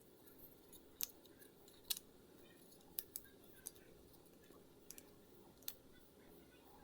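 About eight faint, sharp clicks at irregular intervals over a low steady room hum.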